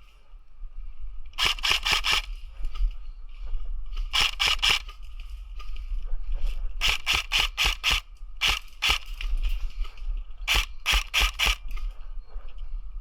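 Cyma M4 airsoft electric gun firing quick single shots in groups of three to six, about five shots a second, with pauses of a second or two between groups.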